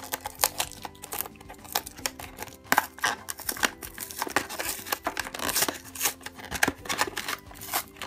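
Plastic blister packaging crinkling, crackling and tearing away from its cardboard backing as a toy package is pried open by hand, a quick irregular run of sharp snaps and rustles.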